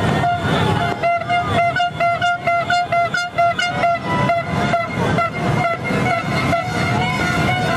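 New Year's horns blown in a crowd. One horn gives a quick string of short toots, about three a second, then holds a long steady note from about five seconds in. Other horns at different pitches and crowd noise sound underneath.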